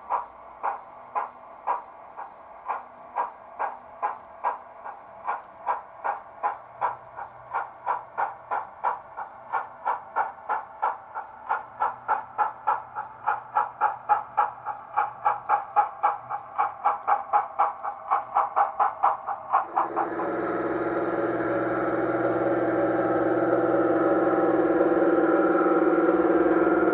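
Chuffing of an O gauge model steam locomotive pulling away, the even beats quickening from about two to about three a second and growing louder. About twenty seconds in it cuts to the steady, louder drone of a model Class 55 Deltic diesel's engine.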